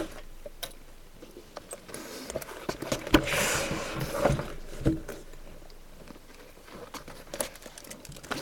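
Handling noise from fabric pencil cases being moved about: scattered soft knocks and clicks, with a rustle about three seconds in.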